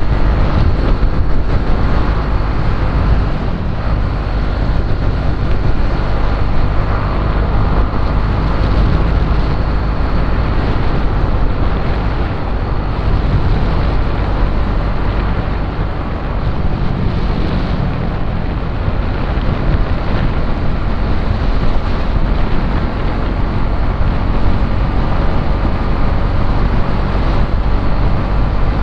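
Motorcycle engine running under heavy wind buffeting on the microphone while riding, a steady rush.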